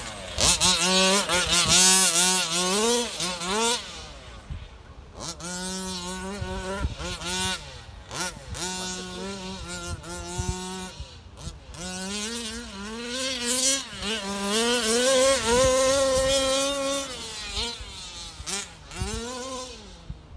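MCD 29cc two-stroke petrol engine of an HPI Baja 5B RC car revving up and down as the car is driven. The pitch climbs with throttle, holds steady at high revs for stretches of a second or more, and drops when the throttle is let off, several times over.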